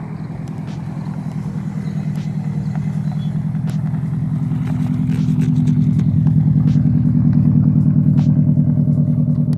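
A car's engine running at a low, steady speed with a deep pulsing exhaust note, growing steadily louder.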